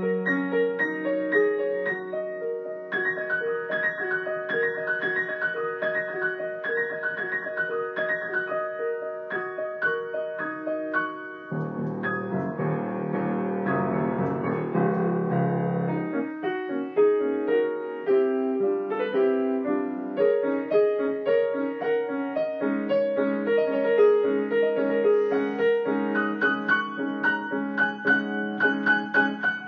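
Solo improvised piano playing a melody over repeated chords. About a third of the way in, a dense run of low, full chords rings together for about four seconds, then lighter single-note phrases take over again.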